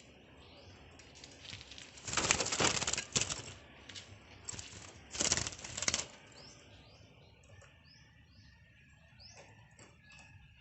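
Birds flapping their wings in two loud bursts, about two seconds in and again about five seconds in, with short high chirps throughout.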